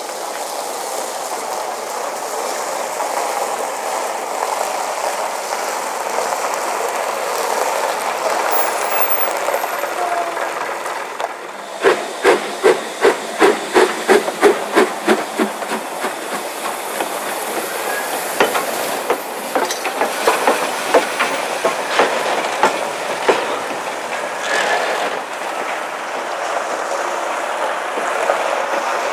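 Steady hiss, then a passing steam locomotive, BR Standard Class 9F 92214: a quick run of sharp, regular beats, about three or four a second, for a few seconds, then a more spaced run of beats over a hiss of steam.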